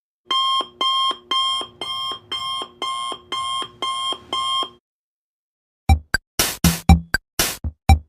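Electronic alarm beeping: nine identical beeps at about two a second, then a second of quiet, then electronic music with sharp drum-machine hits starting about six seconds in.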